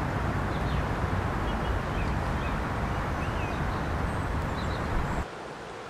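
Steady outdoor rumble and hiss, heaviest in the low end, with a few faint bird chirps over it. The rumble drops away abruptly to a quieter hiss near the end.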